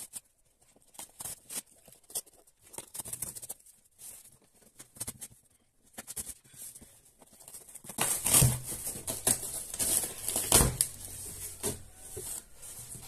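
A cardboard shipping box being handled and opened by hand: scattered scrapes and taps on the cardboard at first, then from about eight seconds in louder tearing and rustling of the flaps and the plastic-wrapped contents, with two louder bursts.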